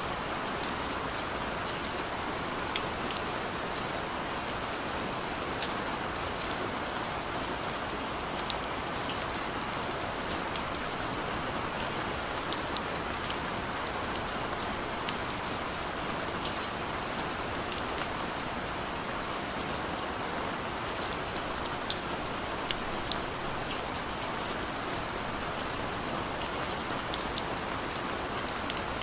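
Steady rain falling, an even hiss with many separate drops ticking sharply on a surface.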